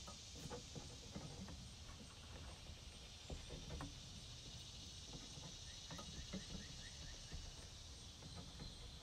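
Quiet outdoor summer ambience: a steady high insect drone over a low rumble, with scattered faint clicks and a short run of faint chirps about six seconds in.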